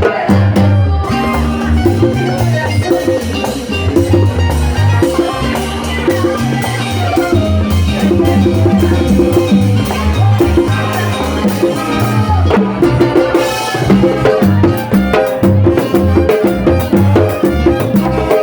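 Latin dance band playing, with a steady bass line under busy drum and timbales strokes.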